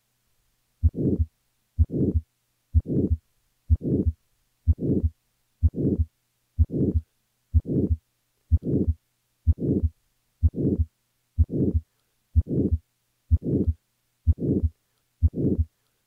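Heart sounds from a patient's cardiac auscultation at the right upper sternal border, about one beat a second, each carrying a harsh, late-peaking crescendo-decrescendo systolic murmur: the murmur of hypertrophic obstructive cardiomyopathy.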